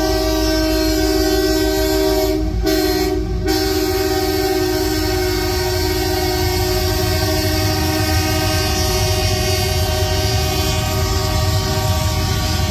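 Norfolk Southern diesel locomotive's air horn held as a steady chord, with a brief break about two and a half seconds in and some of its lower notes dropping out about nine seconds in. Underneath, the freight cars rumble steadily over the rails as they roll past.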